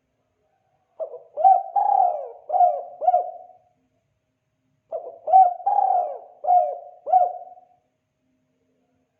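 Spotted dove (tekukur) cooing its "kuk 2" call: two identical phrases a little over a second apart, each a run of about five low coos lasting under three seconds.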